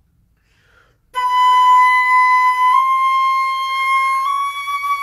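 Concert flute playing slow, long held notes that rise a semitone at a time, starting about a second in: three steady notes of about a second and a half each, an ascending chromatic scale exercise.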